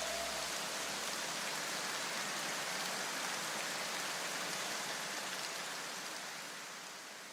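Steady hiss like rain that slowly fades out, with the last low notes of electronic music dying away in the first second or so.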